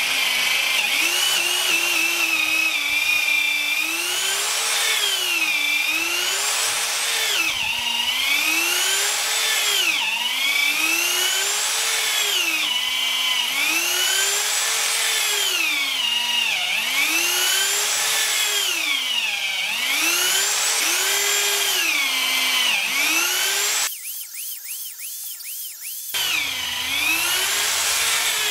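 Corded electric drill boring a deep hole into the timber of a wooden boat's shaft log with a long bit, drilling for half-inch drift bolts. The motor whines steadily, its pitch rising and falling about every two seconds as it labours in the wood, with a brief quieter dip near the end.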